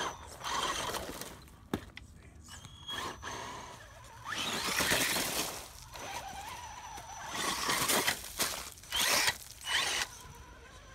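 Radio-controlled rock crawler driving over loose dirt, its electric motor and gears whirring in several short bursts with faint steady whine between them. There is a single click about two seconds in.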